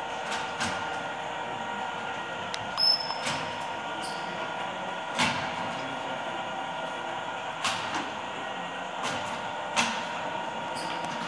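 Steady mechanical hum and whine of a working cutaway truck axle display, its drive turning the Mercedes-Benz SK 2632's planetary wheel hub reduction gear, broken by several sharp clicks and knocks and a brief high beep about three seconds in.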